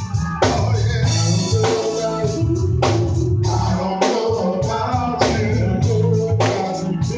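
Band music with singing: guitar, bass and drums playing to a steady beat.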